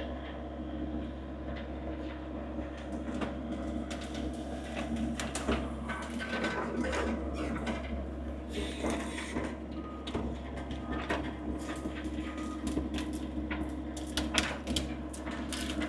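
A diesel engine running steadily at idle, with repeated metallic clanks, knocks and rattles of work on a tracked skid steer's loose track; the knocks come thicker near the end.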